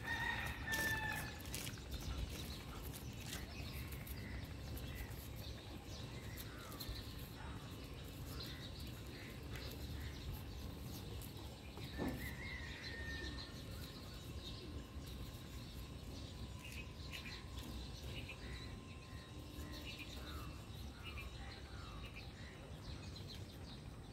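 Outdoor street ambience: a low, steady background rumble with scattered short, high chirps, and one sharp click about halfway through.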